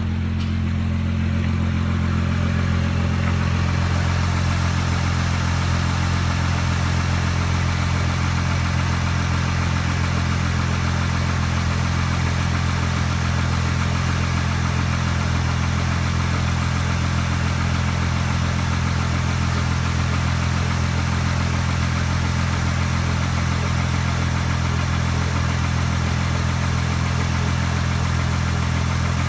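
2007 Honda Pilot's 3.5-litre V6 idling steadily on an engine test run.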